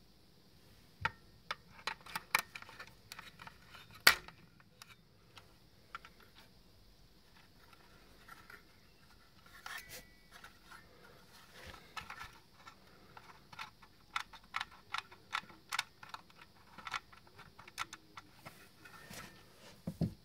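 Irregular light clicks and knocks from a metal kitchen wall clock with fork-and-spoon spokes being handled and turned over in the hand. The loudest, sharpest click comes about four seconds in.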